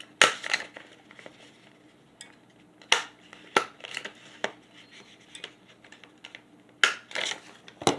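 Stapler being pressed through folded paper to bind mini comics: several sharp clicks at irregular intervals, with lighter paper handling between them.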